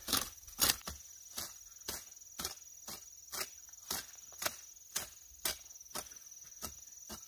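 Hand hoe chopping into soil among peanut plants, weeding, in regular strokes about two a second. A steady high insect call runs underneath.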